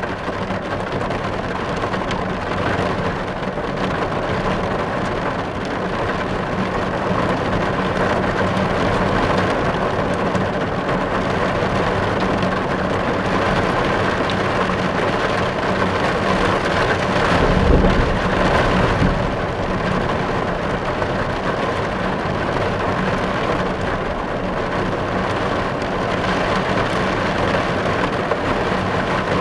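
Steady rain falling, a dense even hiss, with a brief low rumble a little past the middle.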